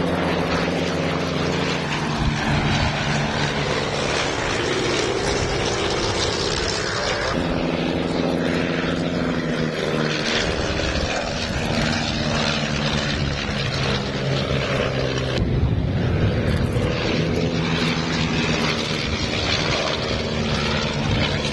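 Two de Havilland Canada DHC-1 Chipmunks flying in close formation, their single piston engines and propellers running with a steady drone. The engine note shifts in pitch a few times.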